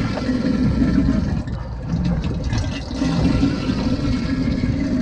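Rushing, sloshing water on a sportfishing boat, over a low uneven rumble.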